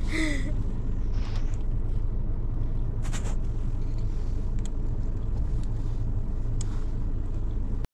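Steady low rumble with a few faint clicks, cutting off suddenly near the end.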